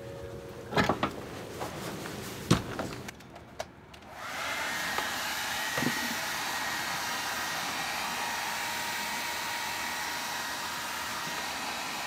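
A few light knocks, then a handheld hair dryer switches on about four seconds in and runs steadily, blowing hot air on a frozen RV water hose and filter to thaw it.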